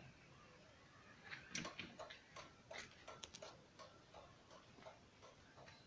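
Turn-indicator flasher of a Kubota MU4501 tractor ticking faintly, a few uneven clicks a second.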